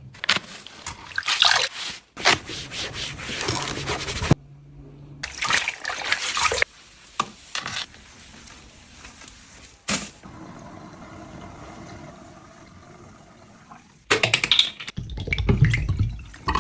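A string of short household handling sounds cut together abruptly, with liquid being poured and splashing in parts of it.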